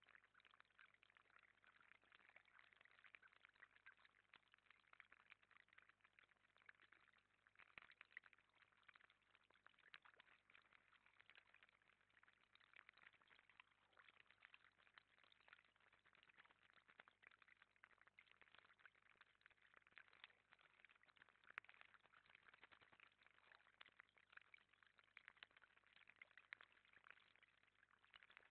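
Faint, steady trickle and patter of water running over the stones of a small garden pond's cascade.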